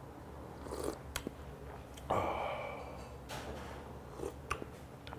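A person slurping hot fish broth from a spoon: one loud slurp about two seconds in, with a few short mouth and spoon clicks around it.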